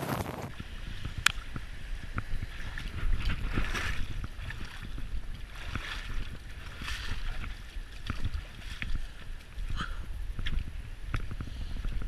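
River water rushing and splashing over rocks, with wind buffeting the microphone as a low steady rumble. Short light clicks and knocks come now and then.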